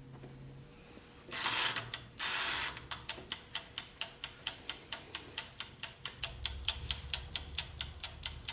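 Mechanical wind-up timer of an electric UFO burger press: the dial is turned with two short ratcheting rasps about a second in, then the timer ticks steadily at about four ticks a second as it counts down a five-minute bake.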